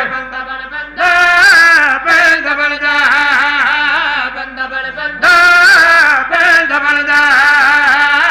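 Men's voices chanting a noha, a Shia lament, in long melodic phrases; it is quieter for the first second, and loud phrases begin about a second in and again a little after five seconds.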